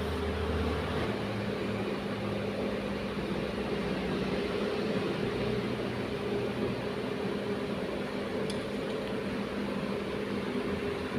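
TIG (argon) welding arc running steadily: an even hiss with a constant electrical hum.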